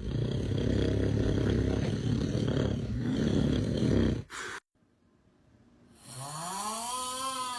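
A person snoring: a long, loud, rattling snore for about four seconds, then after a brief quiet a voiced snore whose pitch rises and falls.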